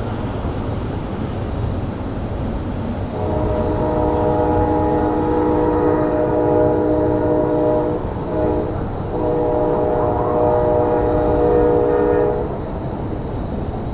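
Diesel locomotive's multi-chime air horn sounding a long blast of about five seconds, breaking briefly, then sounding again for about three seconds, over a steady low rumble of train noise.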